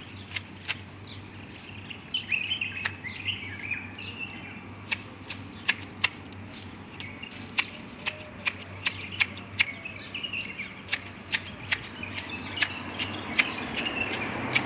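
Garden shears snipping tree foliage in a rapid, irregular run of sharp cuts, with birds chirping.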